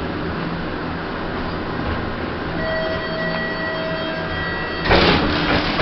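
Passenger lift from the 1980s, a Thyssen, running in its shaft with a steady hum and rumble. A steady tone comes in about two and a half seconds in and holds for about two seconds. Near the end a louder rush of noise with clicks starts, like the car doors opening.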